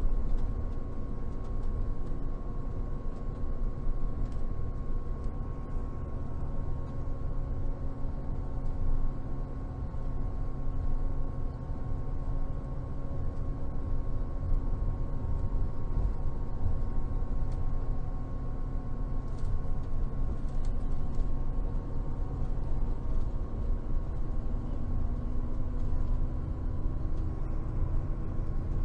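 Cabin noise inside a Scania double-decker coach under way: a steady low rumble with a few steady whining tones over it.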